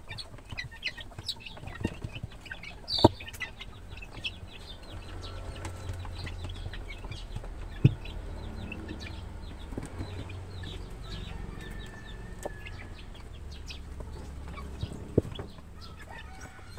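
A brood of 23-day-old chicks feeding at a plastic feeder: many quick pecks and short peeps, with a few louder knocks against the feeder.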